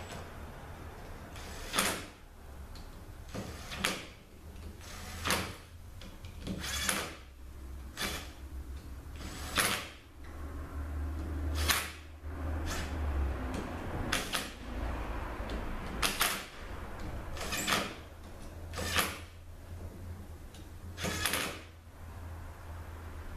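Hand ratchet tightening small bolts down: a short burst of ratchet clicks about every second and a half, over a low steady hum.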